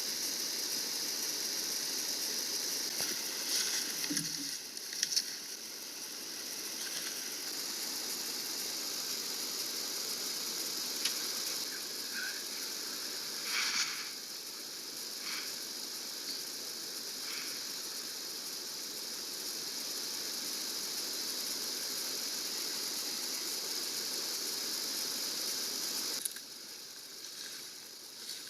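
Steady high-pitched drone of an insect chorus in summer woods, with a few faint rustles and knocks; it drops away sharply near the end.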